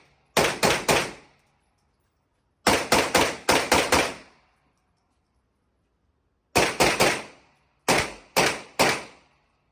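Gunfire from a 9mm AP5 short-barreled rifle with a linear compensator, fired in quick strings of about three shots, with one longer string of about six, the groups a second or more apart.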